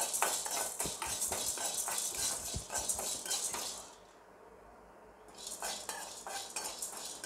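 A slotted metal spoon stirring and scraping split chana dal as it roasts in an aluminium kadai: many small clicks, rattles and scrapes of metal and lentils against the pan. The stirring pauses for about a second past the middle, then starts again.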